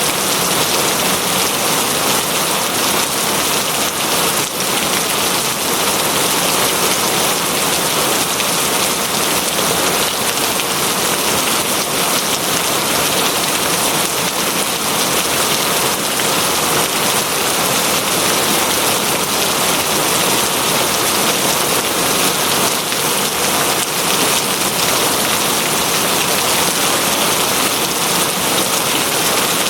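Steady heavy rain pattering on a surface, an even hiss without pause.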